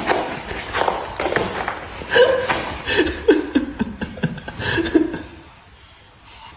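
A person laughing in short repeated bursts, fading away about five and a half seconds in.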